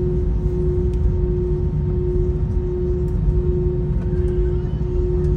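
Steady cabin noise inside an Airbus A321 on the ground after landing: a low rumble from the engines and air conditioning, with a constant hum tone over it.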